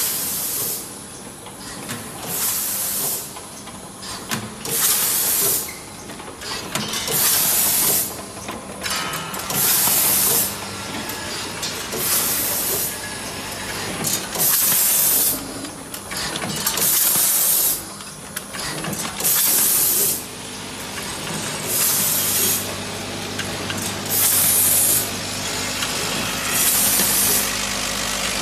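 Automatic pouch-packing machine for powder running through its cycle: a sharp hiss of compressed air, about a second long, repeating every two and a half seconds or so, over a steady low machine hum that grows stronger near the end.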